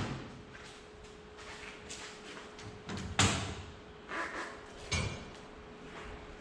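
Several separate loud thumps and knocks, the loudest about three seconds in, with quieter clatter between them.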